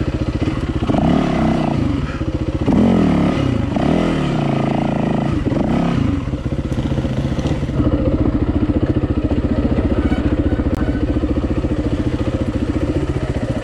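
Yamaha WR450F dirt bike's single-cylinder four-stroke engine under way, revving up and down through the first several seconds, then running at a steady, lower chug for the rest.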